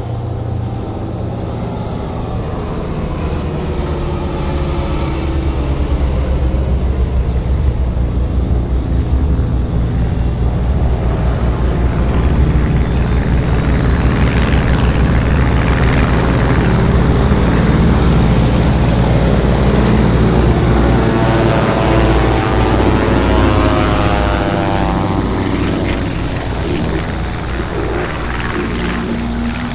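A Spitfire's piston engine and propeller as it flies past. The drone grows louder towards the middle, then drops in pitch as the aircraft passes and draws away.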